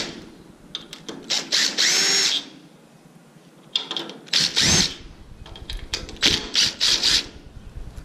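DeWalt cordless driver backing screws out of a screen door lock's face plate in several short bursts, its motor whine rising and falling as the trigger is squeezed and released. The longest run comes in the first half, and a quick cluster of short bursts comes near the end.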